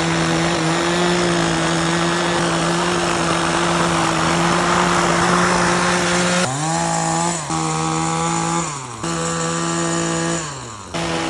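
ECHO PAS-2620 two-stroke power head driving a Pro Paddle sweeper attachment, running steadily at high speed. From about six and a half seconds in, its engine speed dips and climbs back several times, then it settles steady near the end.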